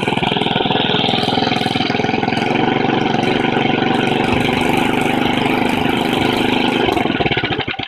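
The small single-cylinder engine of a 1961 Ariens 10ML-35 snowblower runs steadily at one speed on fresh oil and gas. It sounds healthy, though the owner thinks the untouched carburettor may be gunked up and could be set to run smoother. Near the end the engine winds down and stops.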